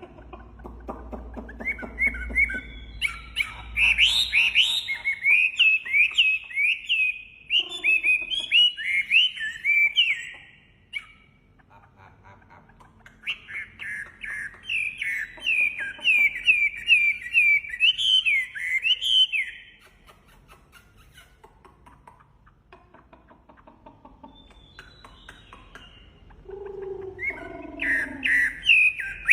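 A songbird known to Indonesian keepers as a 'wambi' singing in full voice: fast runs of short, sharp, swooping chirps, in three bouts with quieter pauses between.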